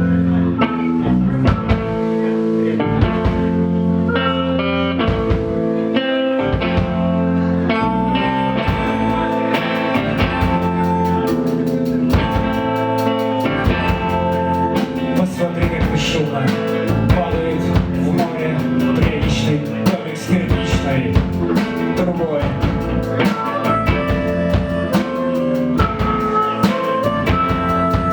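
Live rock band playing a song's instrumental introduction, with guitars and a drum kit. About eight seconds in, a steady high cymbal beat joins and the sound fills out.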